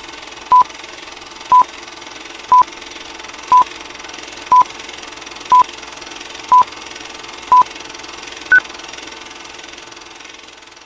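Film-leader countdown beeps: a short, pure beep once a second, eight at the same pitch and a final one higher, over a steady hiss that grows fainter near the end.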